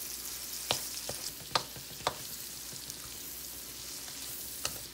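Chopped onions and pork sizzling in oil in a hot metal pan while a spatula stirs them, with a steady hiss and a few sharp knocks of the spatula against the pan.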